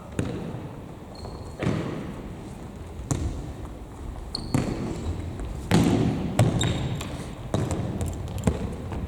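Futsal ball being kicked and played on an indoor sports-hall floor: a string of sharp thuds, each echoing in the hall, with short high squeaks from players' shoes in between.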